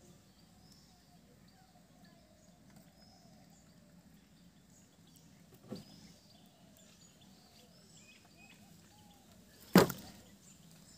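Faint birdsong over quiet outdoor background, with a short splash about six seconds in as a small fish is pulled from the water. Near the end a loud sharp knock, the catch dropping into a plastic bucket.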